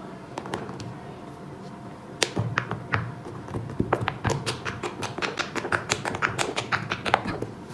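Fidget toys being pressed and tapped: a few scattered clicks, then from about two seconds in a quick, irregular run of sharp pops and taps, several a second.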